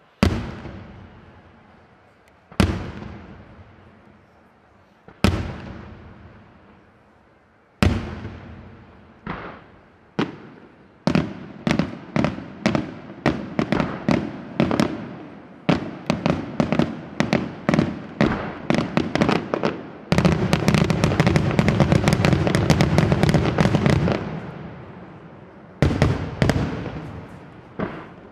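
Aerial firework shells bursting: single loud bangs a couple of seconds apart, each with a long echoing tail, then coming faster and faster until a dense run of rapid-fire bangs for about four seconds, and two last bangs near the end.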